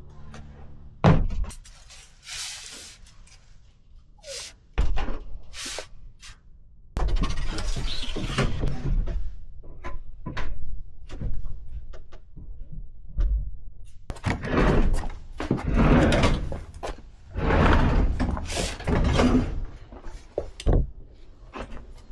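Irregular knocks, thumps and longer spells of scraping and rustling as old dryer vent ducting and debris are pulled out and handled.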